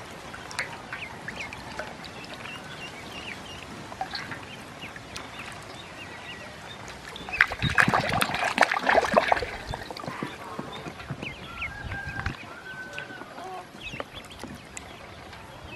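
Ducklings peeping while they paddle and dabble in a shallow metal bowl of water. About halfway through comes a burst of louder splashing, lasting about two seconds.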